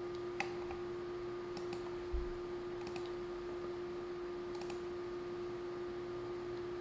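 A few sharp clicks at a computer, several in quick pairs, spaced about a second or more apart, over a steady electrical hum. A single dull thump comes about two seconds in.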